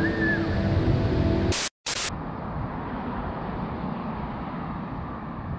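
Rushing of a large indoor waterfall with music playing over it. About a second and a half in, it cuts off sharply with a brief burst of hiss, then gives way to a quieter, steady, even hiss of outdoor noise.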